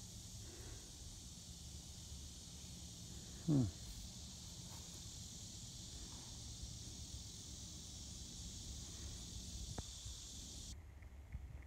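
Steady high-pitched buzz of insects. About three and a half seconds in, a short falling vocal sound is the loudest thing. Near the end the buzz drops out abruptly.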